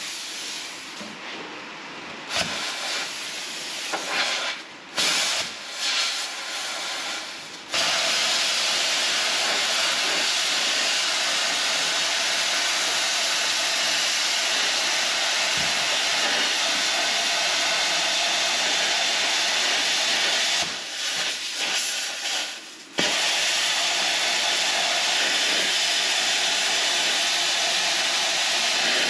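Plasma cutter hissing steadily as it cuts through a rusted car floor pan. The hiss starts abruptly about eight seconds in, breaks off briefly about two-thirds of the way through, and then resumes.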